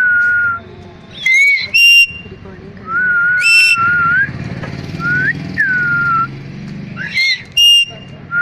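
Pet parrot whistling: several held whistles with upturned or downturned ends, broken by short harsh squawks.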